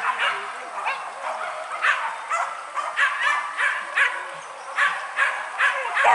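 A pack of hunting dogs yelping and barking over and over in high-pitched, rapid calls.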